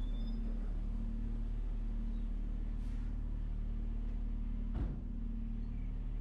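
A motor vehicle engine running steadily with a low hum, and a single sharp knock about five seconds in.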